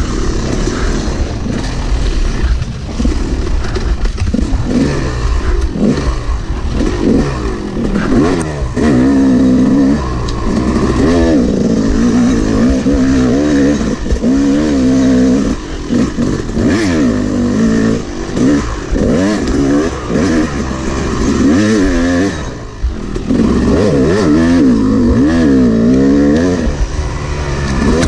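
Yamaha YZ250 two-stroke dirt bike engine being ridden hard on a trail, revving up and falling back again and again as the rider works the throttle and gears. The engine briefly drops off about three quarters of the way through.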